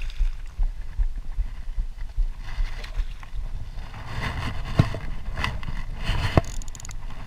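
Shallow river water splashing and sloshing close to the microphone as a hooked salmon is played at the angler's feet, over a low rumble on the microphone. Two sharp knocks come near the end.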